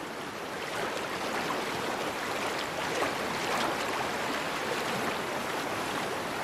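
Small surf waves breaking and washing in a steady rush of water, a little louder from about a second in.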